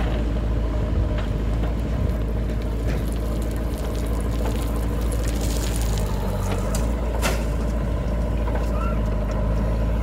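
JCB backhoe loader's diesel engine running steadily while the backhoe digs and swings soil, with a sharp knock about seven seconds in.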